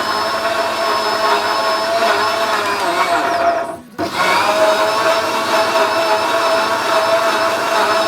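Novena electric blender's motor running at full speed, grinding ginger and garlic with water into a wet paste: a steady high whine over a churning sound. The sound drops away briefly about three and a half seconds in, then comes straight back.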